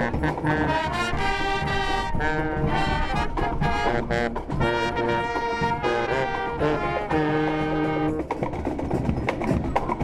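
Marching brass band playing a march on trumpets, horns and sousaphone, in held chords over a steady beat. The tune stops about eight seconds in.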